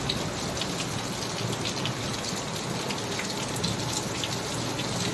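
Heavy rain falling steadily, with many scattered sharp drop hits.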